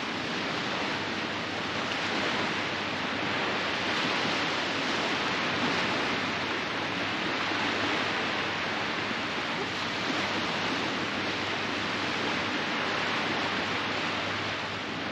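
Sea surf washing steadily onto the beach, a constant rushing hiss that swells and eases gently every few seconds.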